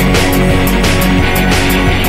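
Loud background music with a steady drum beat.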